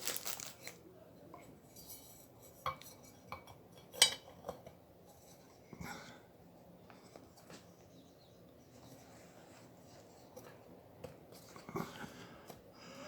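Scattered light clicks and metallic clinks of air cleaner parts being handled and fitted together, with one sharper knock about four seconds in.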